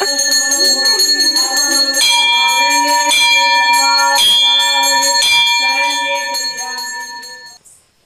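A bell ringing during a puja: re-struck about once a second, its tones ringing on between strokes, then fading out and stopping shortly before the end.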